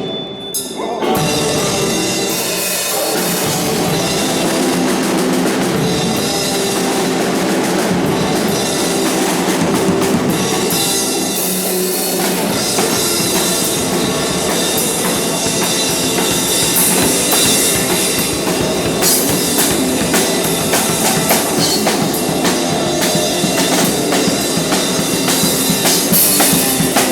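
Music with a steady drum beat and bass drum, loud and continuous.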